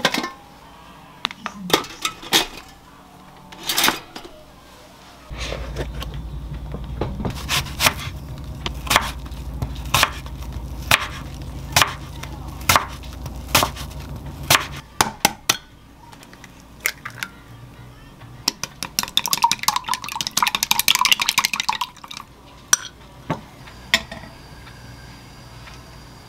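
Kitchen prep sounds: a knife slicing an apple on a wooden cutting board, about one stroke a second over a steady low hum. Later there is a quick rapid clatter of a utensil against a dish.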